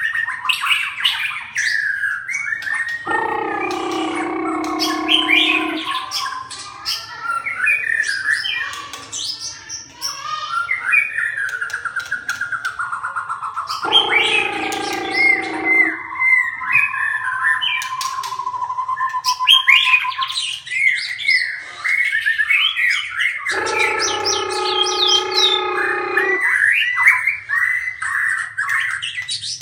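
A bird whistling and chirping in quick runs of rising and falling notes. Three longer, harsh calls of two to three seconds each break in, about three, fourteen and twenty-four seconds in.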